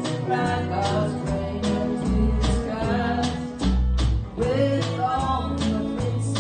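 Live country gospel band playing electric guitar over a steady beat, with women singing the melody through microphones.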